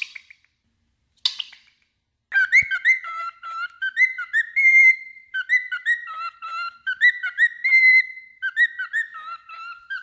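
Cockatiel singing: two short sharp chirps, then from about two seconds in a fast, unbroken run of warbling whistled notes that rise and fall.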